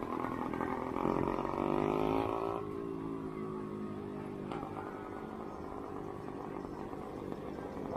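Motorcycle engines running in a group ride; one revs up, rising in pitch about a second and a half in, then holds steady for a couple of seconds before fading back into the general engine noise.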